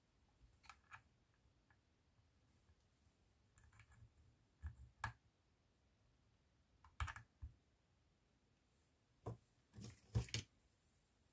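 Scattered light clicks and taps of a metal servo arm being handled and tried on a large servo's output spline, with a louder cluster of knocks near the end.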